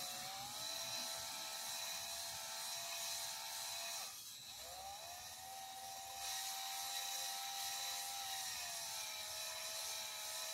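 Cordless DeWalt drill motor whining steadily as it spins a cylinder hone up and down inside a cast-iron engine cylinder bore, with a light scraping of the hone on the bore wall. This is deglazing the bore to give a 45-degree crosshatch for new piston rings. About four seconds in the whine dips and stops briefly, then winds back up, and it drops slightly in pitch near the end.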